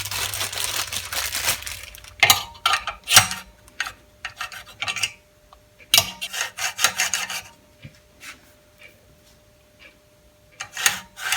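Rustling at the start, then irregular clusters of sharp metal clicks and knocks as a benchtop sander's miter gauge is handled and fitted into the slot of its disc sanding table.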